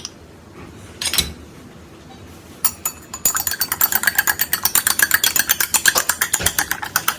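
A metal utensil clinking against a pot or bowl: a couple of single clinks, then from about three seconds in a fast, even run of ringing strikes, about eight a second, as in brisk stirring or mixing.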